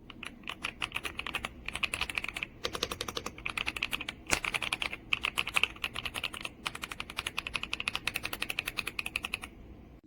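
Fast typing on an Epomaker x Aula F75 gasket-mounted 75% mechanical keyboard: a dense run of key clacks with a few short pauses, stopping about nine and a half seconds in.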